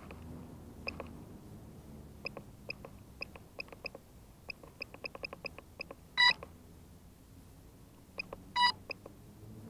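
Electronic beeping from a Hobbyking FPV250 quadcopter's electronics: a scatter of short, irregular pips, then two longer, louder beeps about two and a half seconds apart.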